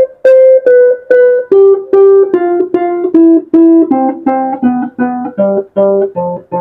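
Burmese arched harp (saung gauk) played in single plucked notes, about two to three a second, stepping down in pitch. In the last couple of seconds, lower notes sound together with the higher ones.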